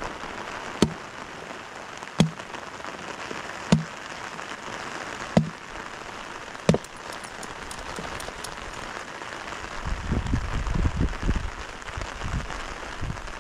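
Steady heavy rain, with six sharp woody chops about a second and a half apart as a hatchet splits firewood on a log. In the last few seconds there are low thuds and rustling as the wood is handled close to the microphone.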